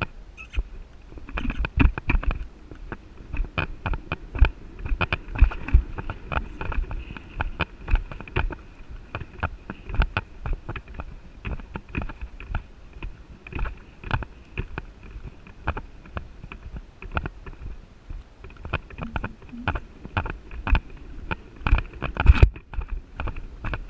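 A horse cantering on sand arena footing, heard close up from a camera on its head: a running series of hoofbeat thumps and tack knocks, roughly two a second, with a louder thud near the end.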